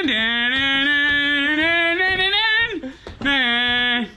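A voice singing long held notes without words: one note of nearly three seconds that drops in pitch at its start and rises a little near its end, then a shorter held note a little after three seconds in.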